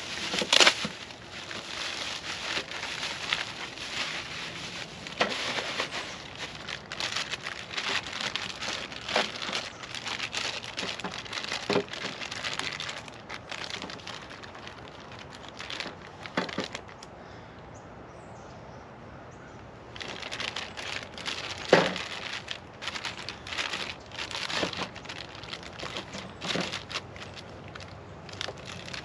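Packaging being handled and unwrapped: irregular crinkling and rustling with scattered clicks and knocks, and a brief quiet spell a little past the middle.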